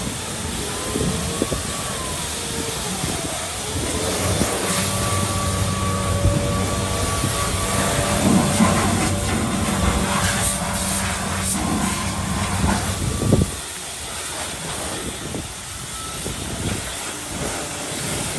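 An engine running with a steady hum, which cuts off suddenly about thirteen seconds in, ending with a knock.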